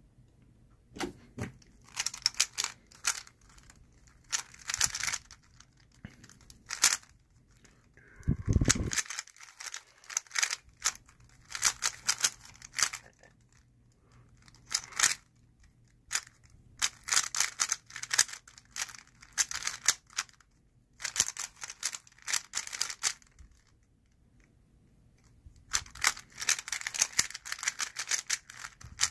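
Moyu Weilong GTS v2 speed cube being turned fast: bursts of rapid plastic clicking and clattering turns, broken by short pauses. One dull thump about a third of the way in.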